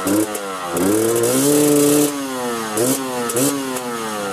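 Husqvarna TE300i 2020 enduro motorcycle's single-cylinder two-stroke engine being revved in blips. There is a quick blip at the start, then a longer rev held for about a second, then two more short blips near the end. The pitch drops back toward idle after each one.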